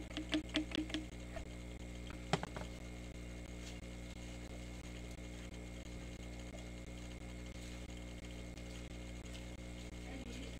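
Plastic bottle and measuring jug handled and set down on a stainless-steel table: a quick run of small clicks and taps, then a single knock about two seconds in. A steady low hum runs underneath.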